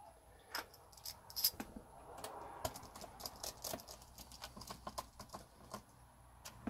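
Small screwdriver and screws working on a laptop's plastic bottom case: scattered light clicks and taps at an uneven pace as screws go into the base.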